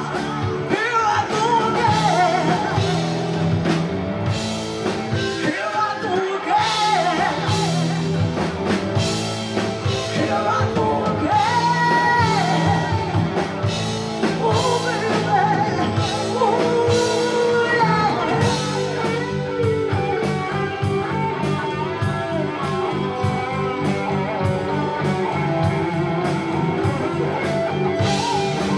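Rock covers band playing live: a lead vocal sung over electric guitars, bass, keyboards and a drum kit, with the drums keeping a steady beat.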